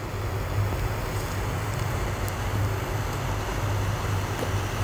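Butane torch lighter burning with a steady rushing hiss while it lights a cigar.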